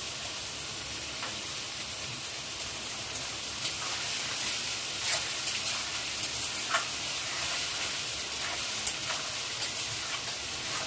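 Chopped onion, peppers and green chilli sizzling in hot oil in a metal kadhai as they are stirred with a spoon, which clicks sharply against the pan a few times.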